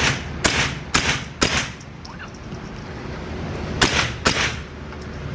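.22 gunshots in a quick string: four shots about half a second apart, then after a pause of about two seconds, two more.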